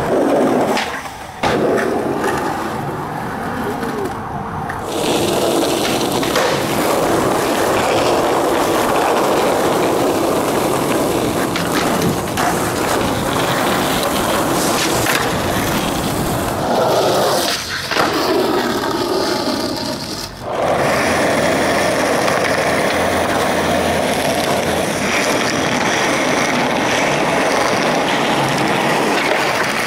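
Skateboard wheels rolling over concrete pavement, a steady rumble broken by sharp clacks of the board. The sound changes abruptly several times as one clip cuts to the next.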